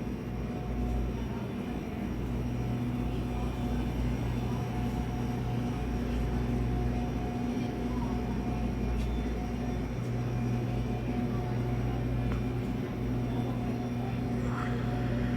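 Steady low engine drone with a few held tones, like a vehicle engine running at idle.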